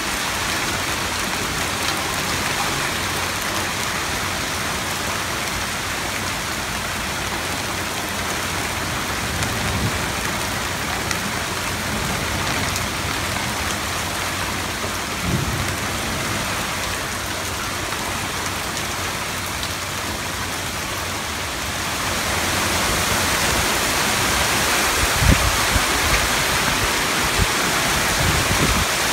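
Heavy rain from a hurricane's outer rain band pouring down steadily, growing louder about two-thirds of the way through. A few low thumps come near the end.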